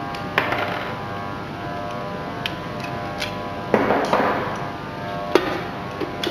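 Tensile test rig pulling a 15 mm plastic push-fit pipe coupler apart as the load climbs: about six irregular sharp clicks and creaks over a steady hum. Two of the clicks trail off into a brief crackle, about half a second in and again near the middle.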